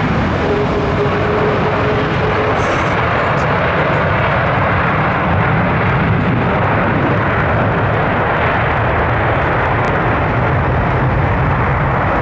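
Boeing 747-400's four General Electric CF6-80C2 turbofan engines running at high thrust as the jumbo jet rolls down a wet, slushy runway: a loud, steady jet noise.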